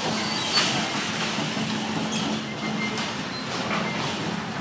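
Bumper cars running on the ride floor: a steady hum and rumble, with two sharp knocks, about half a second and two seconds in.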